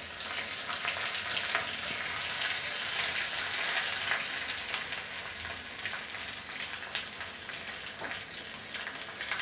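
Small onions, curry leaves and dried red chillies sizzling in hot oil in a small pan, a tempering being fried for a curry. A ladle stirs them steadily, with scattered sharp crackles and a couple of louder clicks in the second half.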